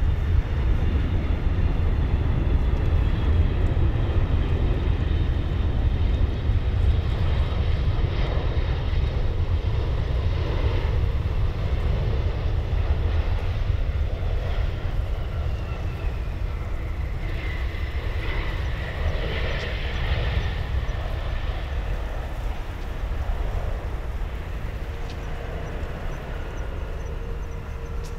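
Boeing 777-200 airliner's jet engines through approach and landing: a steady low rumble, with a thin whine that falls in pitch around touchdown, the noise easing slowly as the aircraft rolls away down the runway.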